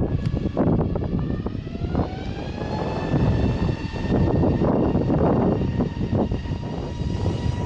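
Jet airliner engines running with a whine that rises in pitch over the first few seconds, then holds steady over a heavy rumble.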